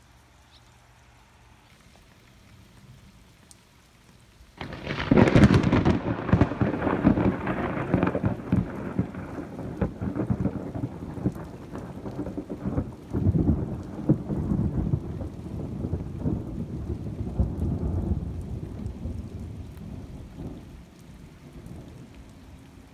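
Loud booming thunder: a sudden crack about five seconds in, then a long rumble that swells again about halfway and slowly dies away.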